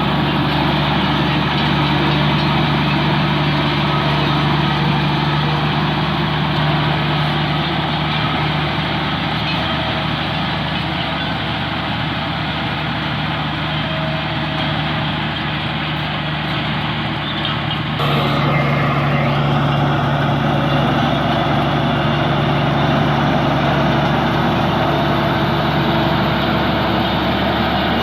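Bulldozer's diesel engine running steadily. The sound shifts abruptly, slightly louder, about two-thirds of the way through, then runs on steadily.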